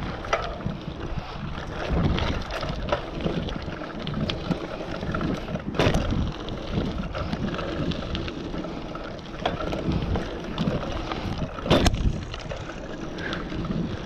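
Mountain bike riding fast over the rollers and berms of a dirt pump track: tyre noise on packed dirt, small rattles from the bike and wind buffeting the camera microphone. Two sharp knocks stand out, about six and twelve seconds in.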